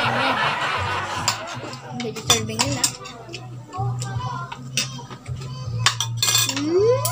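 Metal spoons and forks clinking and scraping against ceramic plates and bowls during a meal, in scattered sharp clicks, with murmured voices in the first second.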